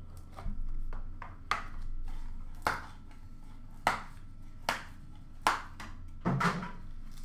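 Cardboard card box being handled: a series of sharp taps and knocks, roughly one a second, as the lid is lifted off and the box is set down on a glass counter.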